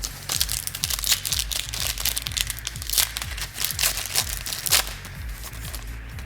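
Trading cards being handled and flipped through, with crisp rustling and clicking that stops about five seconds in. Background music with a steady bass line plays throughout.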